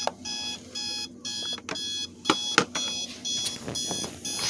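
Spartus digital alarm clock's alarm going off: a high electronic beep pulsing about twice a second, with a few sharp clicks among the beeps.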